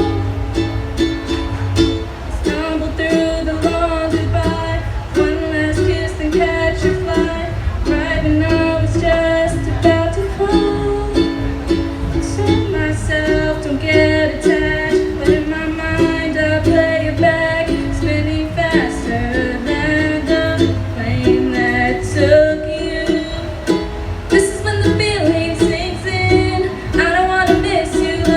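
A song performed live: a strummed acoustic string instrument, in the ukulele's sound, plays a steady rhythmic chord pattern under a solo singing voice.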